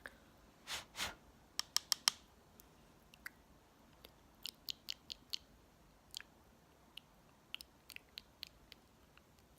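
Makeup handling sounds: two short soft swishes about a second in, then a series of sharp clicks and light taps from makeup products and tools being handled, some in quick runs and some spaced out.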